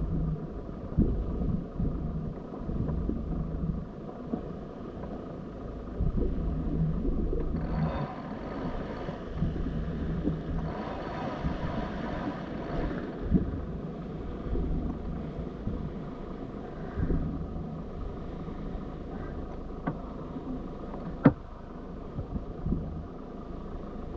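Wind and water noise aboard a moving boat: a low rumble that swells and fades in gusts, with one sharp knock near the end.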